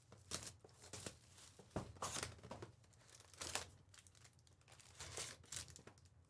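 Faint crinkling and rustling of trading card pack wrappers and cards being handled, a scatter of short soft sounds.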